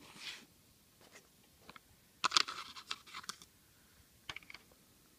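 Scratchy rubbing and clicking of the camera being handled and repositioned: a short cluster of scrapes and clicks about two seconds in, then a few small clicks near the end.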